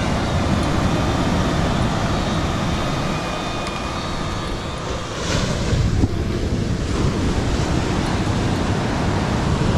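Surf breaking on the beach, with wind buffeting the microphone. For the first few seconds a faint steady whine from a hovering quadcopter drone's propellers sits above the surf.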